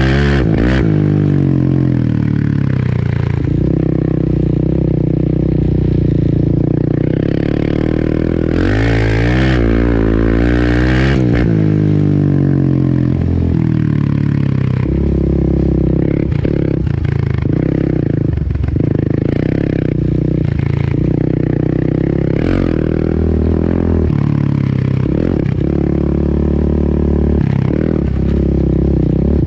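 Single-cylinder four-stroke sport ATV engine under way on a trail, its pitch rising and falling as the throttle is worked, with hard revs climbing near the start and again about nine to eleven seconds in, and several short throttle chops later on. Rattling and scraping from the machine run under the engine.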